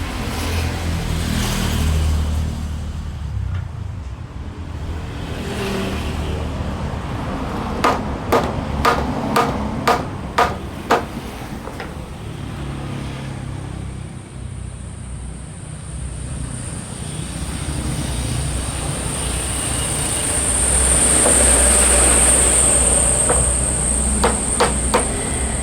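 Hammer striking wood while a door frame is being fitted: a quick run of about seven blows, then three more near the end. Under it, a steady low rumble of passing vehicles that swells, with a high thin whine, shortly before the last blows.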